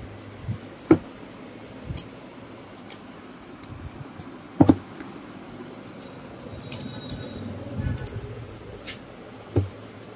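Cardboard box and packing of a portable speaker being opened and handled: a few sharp knocks, the loudest about a second in and about halfway through, with rustling around seven to eight seconds in.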